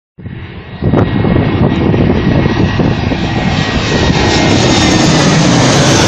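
Twin-engine jet airliner passing low overhead on final approach, its engine noise jumping up loud about a second in and then holding steady, the hiss growing brighter towards the end.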